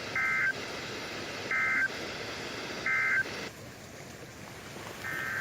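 Three short bursts of warbling EAS/SAME digital data tones, about a second and a half apart, over radio hiss: the end-of-message code that closes a NOAA Weather Radio required weekly test. About five seconds in, another, longer burst of the same data tones begins.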